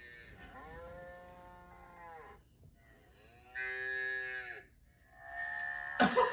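A recording of cows mooing, played as background noise: three long moos one after another, each rising and then falling in pitch, the middle one the loudest. A sudden loud outburst cuts in right at the end.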